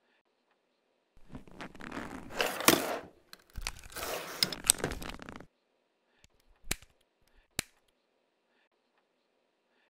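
Papers rustling and items shifting as a cluttered desk drawer is rummaged through for a few seconds, followed by two short, sharp clicks.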